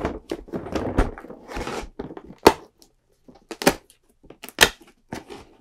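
Large cardboard advent calendar box being shifted and handled, rustling and scraping. Then a cardboard door is torn open and its contents pulled out, with three loud sharp snaps in the second half.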